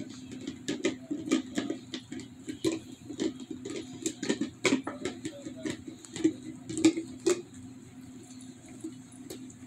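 A German Shepherd licking inside an empty plastic peanut butter jar, its tongue and muzzle knocking the plastic in irregular clicks and taps, loudest about seven seconds in.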